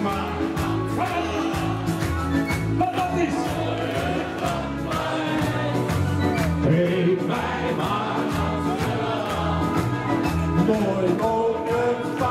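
Sentimental Dutch-language ballad played with a steady beat, with many voices singing the chorus along together.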